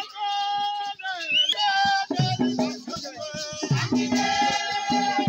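Group of women singing high sustained notes to a dance, with hand-held rattles shaken throughout. Low beats on a slung double-headed drum come in about two seconds in.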